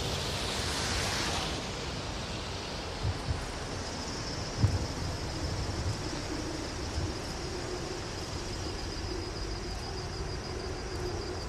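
Outdoor background noise: a steady rushing hiss with a few soft knocks, the loudest just under five seconds in. A faint high steady whine comes in from about four seconds.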